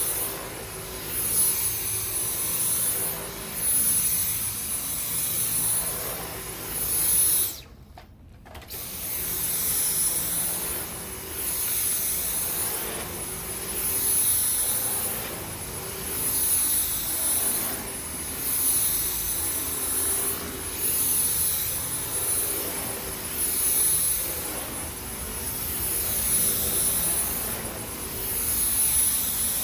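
Dyson V10 Total Clean cordless stick vacuum running, its high motor whine swelling and fading in a regular rhythm every second and a half or so as the cleaner head is pushed and pulled. It cuts out for about a second roughly a quarter of the way in, then starts again.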